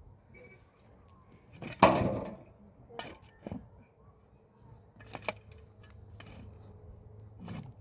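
Scattered knocks and clatters of handled objects, the loudest a heavy thump about two seconds in, with lighter knocks around three, five and seven and a half seconds.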